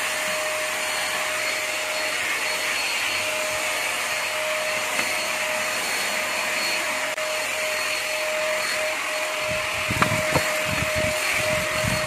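MAXHEALTH vacuum cleaner running steadily as its floor brush is pushed over tiles: an even rushing suction with a constant motor whine. Near the end come a few low thumps.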